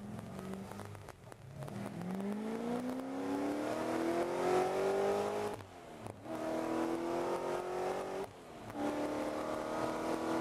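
Supercharged Corvette Z06 V8 accelerating hard through the gears of its manual gearbox: the engine note climbs, drops sharply at a shift about six seconds in, climbs again, and drops at a second shift near eight seconds before pulling up once more. Heard from inside the car.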